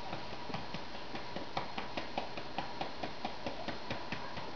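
Soft, even pats of a hand on a baby's back, about four to five a second, to bring up a burp.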